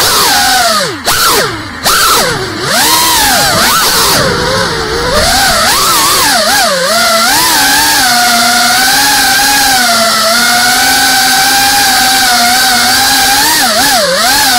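GEPRC Cinelog 35 FPV drone's electric motors and propellers whining, the pitch swooping down and up with throttle changes, dipping sharply twice about one to two seconds in. From about halfway through it settles into a fairly steady hum.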